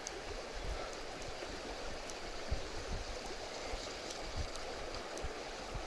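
A shallow river running over stones, a steady rushing of water, with a few faint taps now and then.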